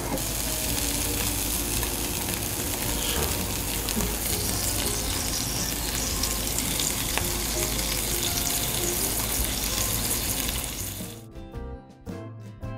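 Hash brown, cheese and bacon sizzling in an electric waffle maker, a steady frying hiss. About eleven seconds in it stops and music begins.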